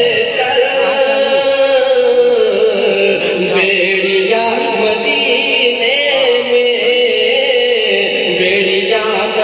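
A man chanting a naat into a microphone, holding long, wavering notes that slide from pitch to pitch.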